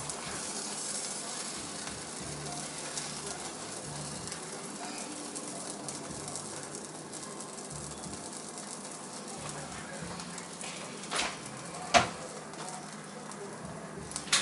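Hamburger buns toasting face-down in a skillet, sizzling with a steady hiss. Two sharp knocks come near the end, the second the loudest.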